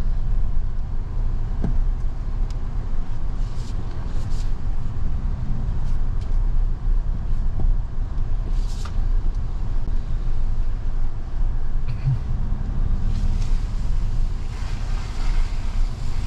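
Toyota Tundra pickup crawling along a rough off-road trail, heard from inside the cab: a steady low rumble of engine and tyres, with a few brief higher rustling or scraping noises now and then.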